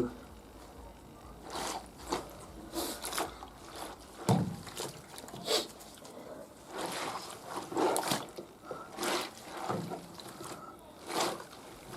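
Wet cloths being pushed through and squeezed by hand in a bowl of cold rinse water, water splashing and dribbling back into the bowl in irregular bursts about once a second.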